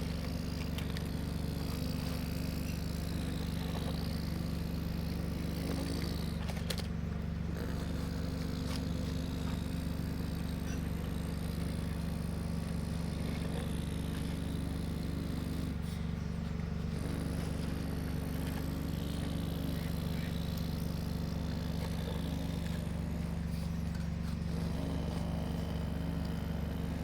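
Excavator engine running at a steady speed, a constant low engine hum with no change in pitch.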